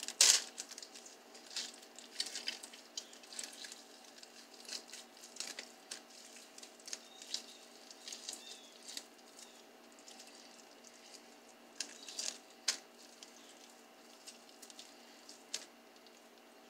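Leftover cooked chicken being torn apart by hand over a plastic slow-cooker liner: irregular soft crinkles of plastic, squishes and small clicks, with a sharper crinkle right at the start and another cluster about twelve seconds in.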